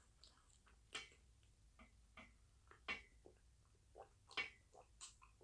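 Near silence broken by faint, scattered clicks and mouth sounds, with a few louder ones about four seconds in: a person sipping and swallowing a drink from a plastic cup.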